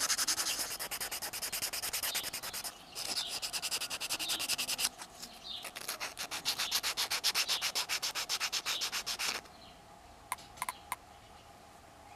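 A folded piece of sandpaper rubbed by hand over a small carved wooden lure body in quick, even back-and-forth strokes, with two short breaks. The sanding stops about nine seconds in, followed by a few faint clicks.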